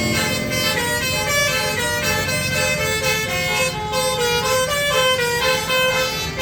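A bus's telolet horn, a multi-tone air horn, playing a melody note by note over the low running of the bus engine.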